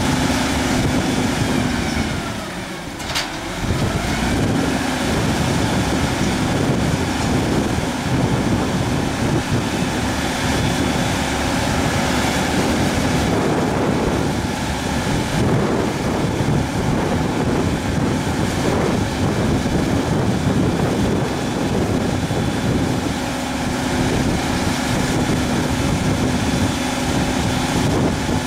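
Multilift truck's diesel engine running steadily while its hook-lift hydraulic arm lowers a sugar cane bin, a constant hum running under the engine noise. A brief dip in level with one sharp knock about three seconds in.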